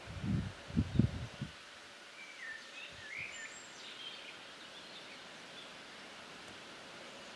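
A few low muffled thumps on the microphone in the first second and a half, then a small bird chirping a short, twittering phrase about two to four seconds in, over steady outdoor background noise. The distant approaching train is not clearly heard.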